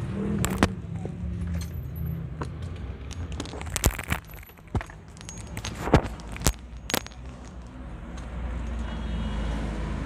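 A string of sharp clicks and knocks with some light metallic jangling, from handling in the car's cabin, over a low steady hum.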